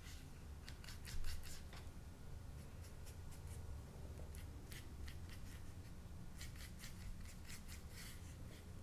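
Small paintbrush stroking acrylic paint onto smooth watercolour paper over a layer of wax pastel: faint, short scratchy strokes coming in several quick runs, one louder one about a second in, over a low room hum.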